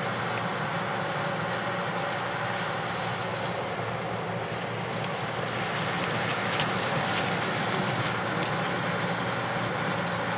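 Steady drone of heavy diesel harvest machinery running, with a few faint clicks and rattles about six to eight seconds in.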